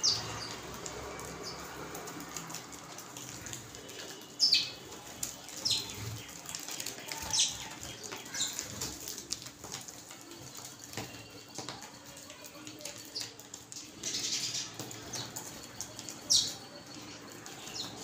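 House sparrows chirping and flapping their wings as they fly on and off a feeding table, with about half a dozen sharp, high chirps scattered through.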